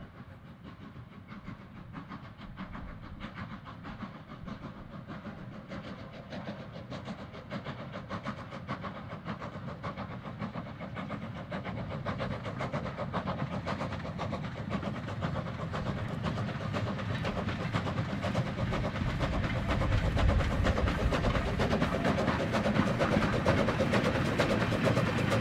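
Small steam tank locomotive, a Stroudley 'Terrier', working a short goods train: a rapid, regular beat of exhaust chuffs that grows steadily louder as it approaches.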